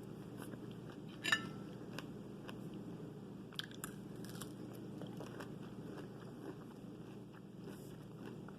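Close-up chewing and biting of fresh fruit, with scattered crisp crunches; the loudest comes about a second in.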